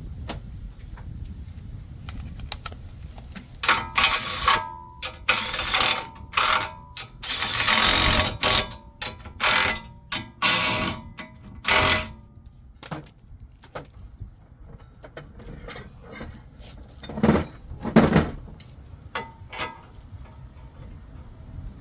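Metal tool noise from a wheel bearing press tool being fitted and worked on a car's front hub: a string of loud scraping and clanking bursts with a faint metallic ring, most of them in the first half, then two more near the end.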